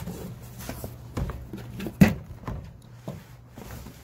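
Cardboard shipping box being handled as a shoebox is lifted out of it: cardboard rustling and several knocks, the loudest a sharp knock about two seconds in.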